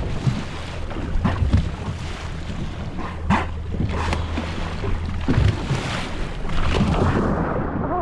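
Steady low hum of a boat's engine with water wash and wind buffeting the microphone. About three and four seconds in come short sharp puffs as offshore bottlenose dolphins surface and blow.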